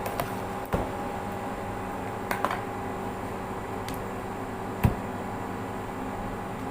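A steady background hum with a few steady tones in it, broken by several short light knocks and clicks. The loudest knock comes about five seconds in.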